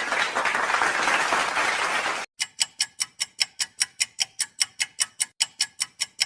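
Applause that stops about two seconds in, followed by a fast, even ticking at about six ticks a second, like a clock or timer sound effect.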